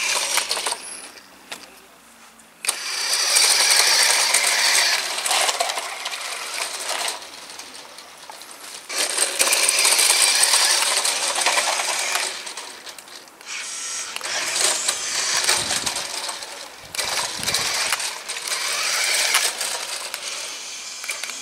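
Carrera RC Big Rock monster truck driving, its electric motor and gears whirring in three long runs with dips between as it speeds up and slows.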